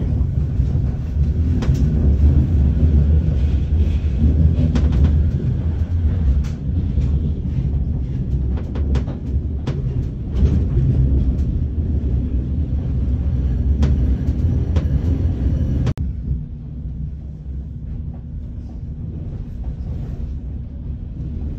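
Inside a moving Bombardier M5000 light rail tram: a steady low rumble of running noise with scattered clicks and knocks. About three quarters of the way through, the noise drops suddenly to a quieter hum.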